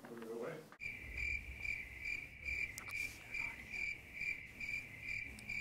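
Cricket chirping: a steady, high-pitched pulsing chirp about twice a second. It starts abruptly about a second in, over a low background rumble. It is the stock 'crickets' sound effect, laid over the footage.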